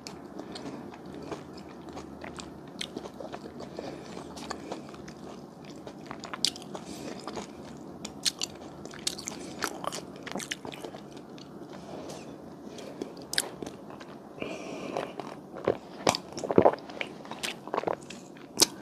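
Close-miked chewing of a Hallabong citrus fruit mochi: soft, wet mouth sounds broken by many scattered sharp clicks and smacks.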